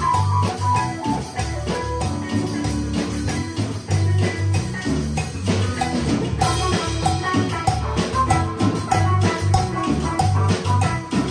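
Small live band playing together: electric keyboard, electric bass, electric guitar and a drum kit keeping a steady beat.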